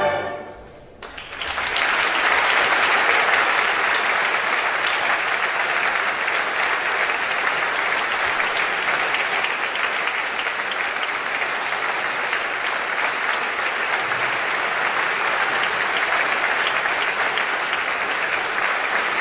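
A choir's final chord cuts off at the start and dies away briefly in the hall, then about a second in a large audience starts applauding, steady and sustained.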